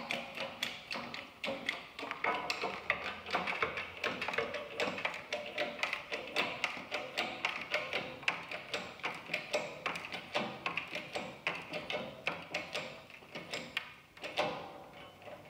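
Bearing press being worked to drive a toothed metal truss plate into 2x4 lumber: a steady run of rapid, even clicks and taps from the press mechanism, easing off briefly near the end.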